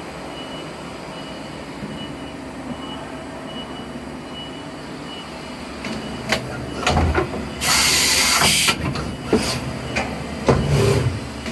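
Okuma MULTUS-B300 multitasking CNC lathe in operation: a steady machine hum, then a series of mechanical clunks and knocks from about six seconds in. About eight seconds in comes a loud burst of air hiss lasting roughly a second.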